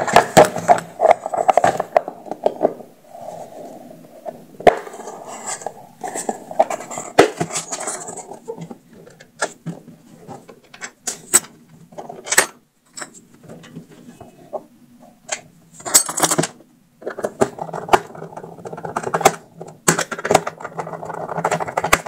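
Hard plastic speaker housing being handled and fitted together on a workbench: irregular clicks, taps and knocks of plastic, with short stretches of denser clatter.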